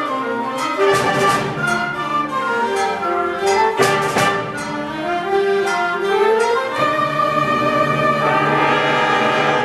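Live school symphonic band playing a concert piece: held brass and woodwind notes, sharp percussion strikes about one and four seconds in, and a line that slides upward midway.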